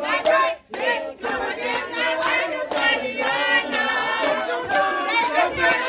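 A crowd of party guests singing together, many voices at once with some shouting.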